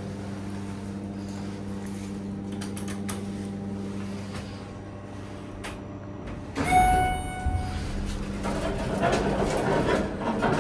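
Steady hum of a 1998 Schindler hydraulic elevator in motion. About six and a half seconds in, a clunk and a single chime tone ringing for about a second mark the car's arrival, followed by the doors sliding open.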